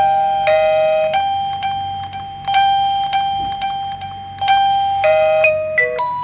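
Un1que U400 wireless doorbell receiver playing its electronic chime tune: a high note and a lower note alternating, each fading away, with a new phrase about every two seconds and a quicker run of notes near the end. The chime sounding shows that the push button is paired and signalling again after a reset.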